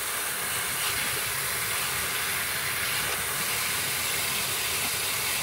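Steady hiss of water spraying from a freeze-burst fresh-water supply pipe inside an exterior wall.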